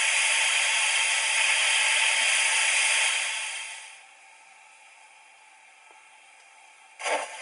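Roco HO BR 38 model steam locomotive's sound decoder playing a loud, steady steam hiss through its small speaker, which fades out about four seconds in. A short burst of hiss follows near the end.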